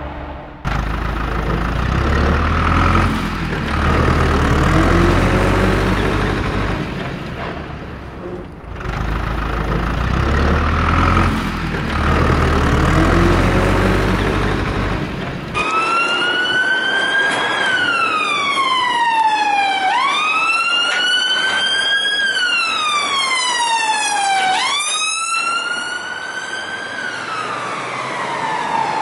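A low, looping vehicle-like rumble that repeats about every eight seconds. About halfway through, a police siren starts suddenly, wailing up and down roughly every four to five seconds.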